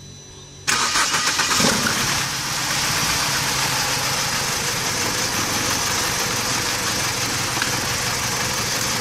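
BMW E90 engine starting less than a second in, then running at idle. The engine is misfiring, and it is running while each ignition coil is checked to find the dead one.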